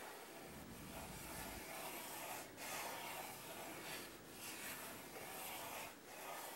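Pencil sketching on paper: a run of soft, scratchy strokes with a few short pauses between them.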